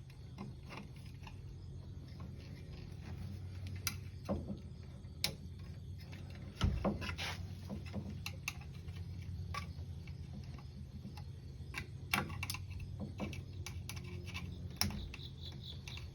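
Irregular clicks and knocks of hands and a tool working the plastic retaining clips that hold a power supply in a bait vending machine, the loudest knock about six and a half seconds in, over a steady low hum.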